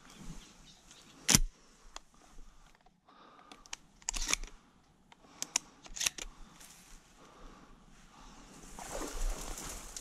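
Dry reeds rustling and crackling as someone pushes through them on foot, with a sharp crack about a second in and a denser rustle building near the end.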